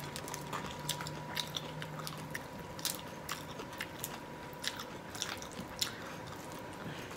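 Close-up chewing and crunching of shrimp eaten with the shells on, with many irregular sharp crackles and clicks.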